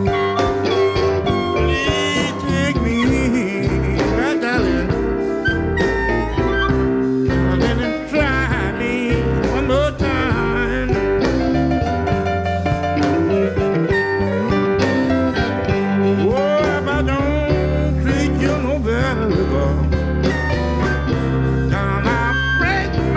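Electric blues band playing live, with piano, electric guitar, harmonica, bass and drums, and a lead line of bending notes over a steady beat. The bass and drums grow heavier about two-thirds of the way through.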